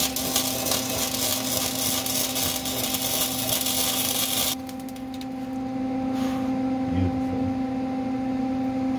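Welding arc crackling and sizzling steadily while a subframe connector is welded to the car's frame rail, then cutting off abruptly about four and a half seconds in. A steady hum runs under it.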